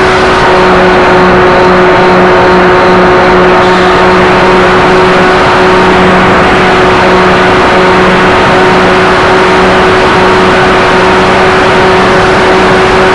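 RC model Partenavia's motors running at a steady, unchanging pitch, heard close up from the plane's onboard camera, over a constant rush of wind.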